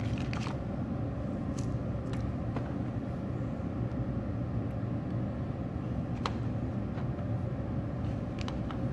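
Steady low mechanical hum in the background, with a few faint scattered clicks and taps as small metal barbed hose fittings are picked up and set down on a table; one sharper click about six seconds in.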